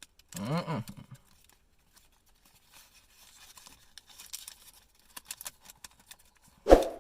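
Faint rustling and light ticks of cardboard and plastic phone packaging being handled. A short hummed vocal sound comes about half a second in, and a sharp knock near the end.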